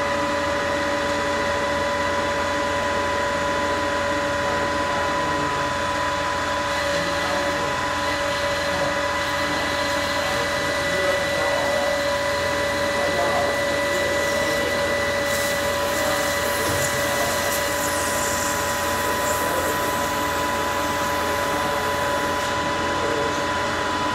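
Manual metal lathe running with a steady gear whine from its headstock. From about seven seconds in until near the end a high hiss joins it as the tool cuts the outside diameter of the spinning metal bar, with cutting fluid sprayed on by hand.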